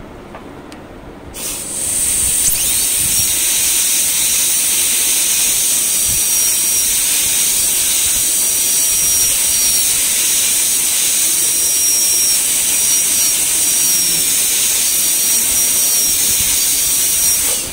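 Air-turbine high-speed dental handpiece running with its bur cutting the labial surface of a typodont central incisor. It gives a steady high-pitched whine over a loud hiss of air. It starts about a second in and spins down at the very end.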